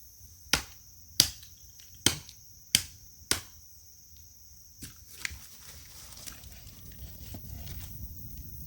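Firewood being chopped: five sharp strokes about two-thirds of a second apart, then two lighter ones. Insects keep up a steady high buzz, and a low rustling grows near the end.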